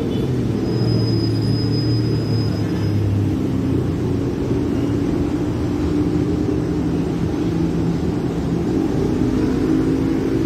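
CC206 diesel-electric locomotive's engine running as it approaches, a steady low rumble with an even hum.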